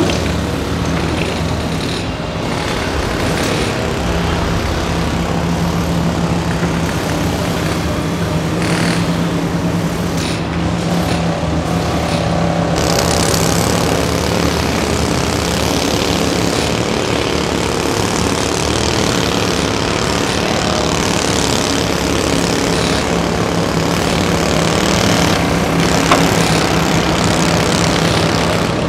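Kobelco SK350 hydraulic excavator's diesel engine running steadily under load as it digs sand and loads a dump truck. There is one sharp clank near the end.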